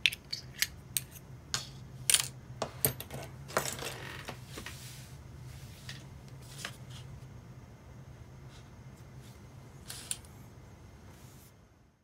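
Small metal parts of a disassembled Ambassadeur 2500C baitcasting reel clicking and clinking as they are handled and set down on a tray. A quick run of sharp clicks comes in the first four seconds, with a few more later, over a low steady hum.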